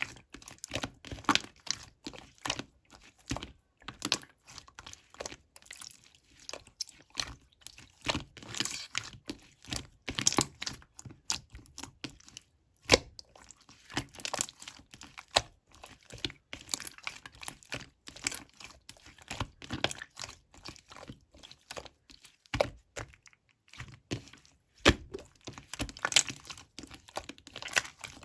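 Clear slime being squeezed and pressed by hand, giving a dense run of irregular clicks and pops.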